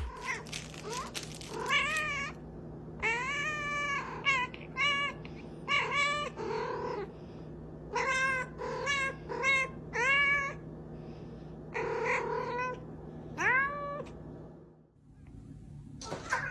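A cat meowing over and over: a long string of short, bending calls, at times several a second, that stops about two seconds before the end.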